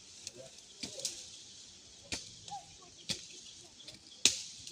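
Four sharp snaps or knocks, the last the loudest, over a steady high hiss of outdoor ambience, with faint short bird-like chirps in between.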